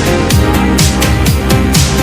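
Background electronic music with a steady beat and deep falling bass hits, about four a second.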